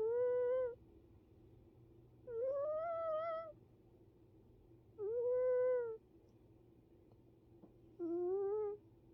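Sleeping cat snoring with a pitched, whining tone on each breath, four times, each about a second long and roughly two and a half to three seconds apart.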